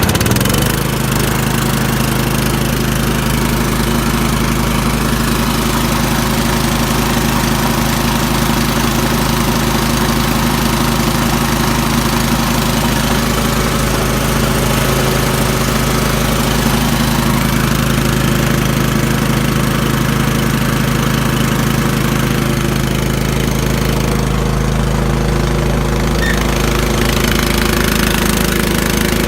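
A small engine on a service truck's equipment body, just started, running steadily.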